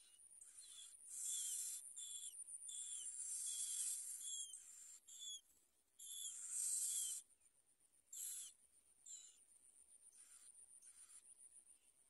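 Bar-winged prinia nestlings begging for food: repeated hissing calls mixed with short high chirps that slide down in pitch. After about seven seconds they die down to fainter, sparser pulses.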